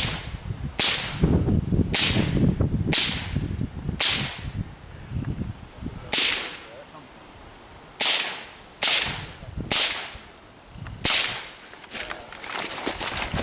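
.22 LR rifle firing about a dozen sharp cracks, unevenly spaced, often about a second apart with a few longer pauses, as a shooter works through timed targets.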